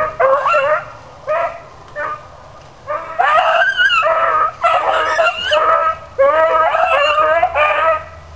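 Hounds baying while running a rabbit's trail, their calls bending in pitch: short calls spaced apart in the first few seconds, then calls coming almost without a break.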